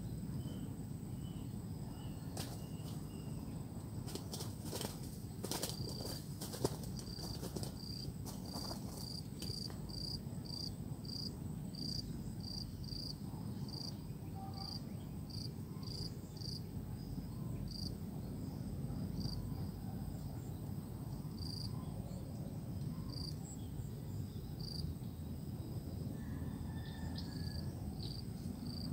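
An insect chirping in a steady series of short, high chirps, about two or three a second, over low steady background noise. A few sharp clicks come in the first few seconds.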